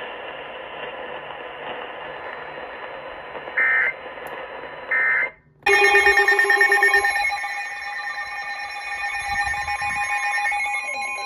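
Hiss from a NOAA Weather Radio broadcast, then two short bursts of warbling EAS data tones about a second apart, the end-of-message signal that closes an alert. After a brief dropout comes a loud electronic alert tone, pulsing rapidly at first and then steadier.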